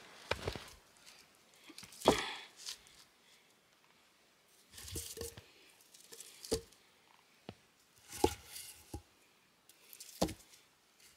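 Wooden logs being set down onto a stack of logs, knocking about six times at uneven intervals, loudest about two seconds in, with a few steps in snow at the start.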